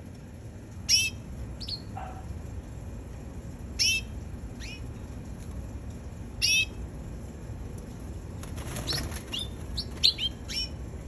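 Domestic canary giving short chirping calls, one about every three seconds, then a quick run of chirps near the end, over a steady low rumble.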